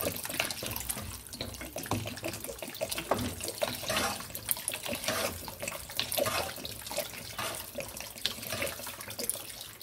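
Water pouring steadily from a plastic bottle into a wok of sautéed onions and capsicum, splashing into the pan as a metal spoon stirs through it. This is the water going into the sauce base before it is brought to a boil.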